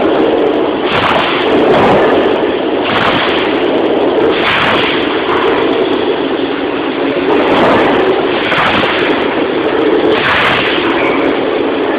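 Dual-column band saw running and cutting through a solid stainless steel bar: a steady mechanical noise with short hissy surges every one to two seconds.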